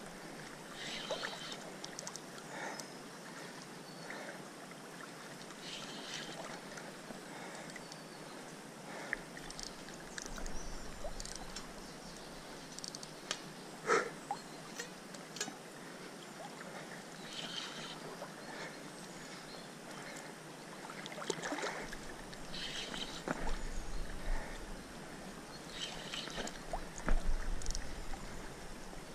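River water lapping with wind buffeting the microphone, over scattered clicks and creaks from the fishing rod and reel held under strain against a big catfish; the reel's bearing is nearly worn out. Sharper knocks stand out about halfway through and near the end.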